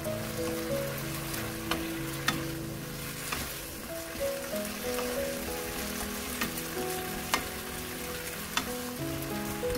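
Stir-fried udon with pork belly, cabbage and bean sprouts sizzling in a nonstick wok as it is tossed with tongs, with a few sharp clicks of the tongs against the pan. Background music plays throughout.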